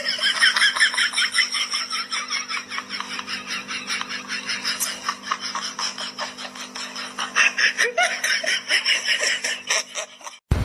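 High-pitched laughter going on without a break in rapid pulses, over a faint steady hum.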